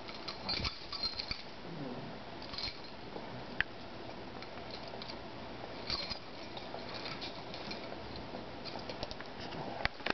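Two dogs play-wrestling on carpet: rustling and mouthing, with the light jingle of a metal collar tag and scattered small clicks.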